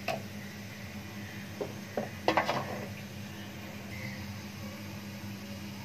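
Light clinks and knocks of kitchen utensils against a metal cooking pot as ground spices are added: one just after the start, two more about a second and a half in, and a short cluster about two and a half seconds in, over a steady low hum.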